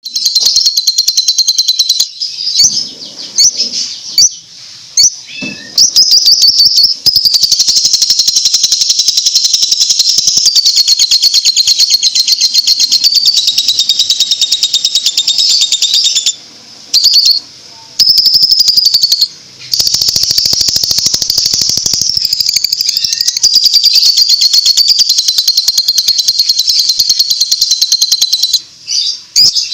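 Lovebird singing a long ngekek: a fast, shrill chatter of high notes that runs on for many seconds at a stretch, broken by a few short pauses. The long unbroken run is the trait bird-keepers prize in this song.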